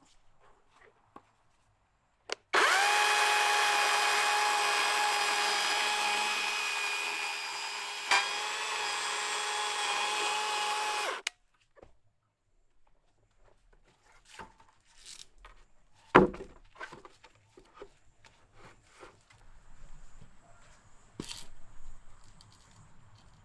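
Handheld power tool running steadily for about nine seconds, its pitch and level sagging slightly as it works, then switching off. A single sharp knock follows a few seconds later, then light clicks and handling noises.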